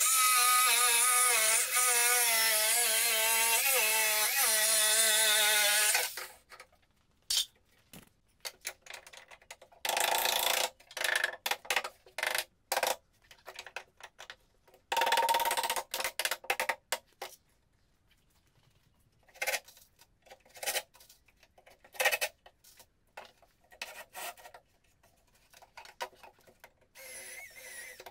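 An electric power tool runs steadily for about six seconds, its pitch wavering slightly under load. It then runs in a few shorter bursts, with scattered knocks and taps in between.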